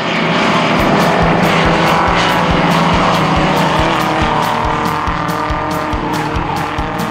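MG TD racing car's engine running at speed on the track, its note slowly falling and fading. Background music with a steady drum beat comes in about a second in.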